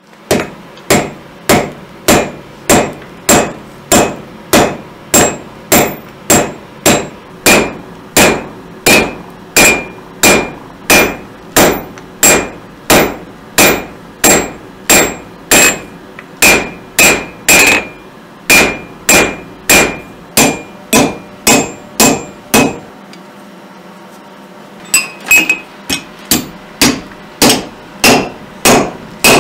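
Blacksmith's hand hammer striking a red-hot iron rod on an anvil in a steady rhythm of nearly two blows a second, each blow with a short metallic ring, as the point of a hand-forged nail is drawn out. After a pause of about two seconds the blows start again, heading the nail in a nail header.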